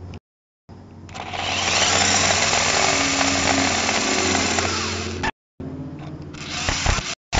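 Parrot Jumping Sumo minidrone driving on pavement: its small electric drive motors whine and its wheels roll, heard through its own onboard microphone. The sound is loudest from about one to five seconds in and cuts out to silence briefly a few times.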